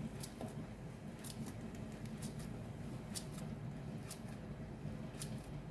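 Kitchen knife slicing through raw peeled plantain, a short crisp click with each cut, about eight cuts at an uneven pace.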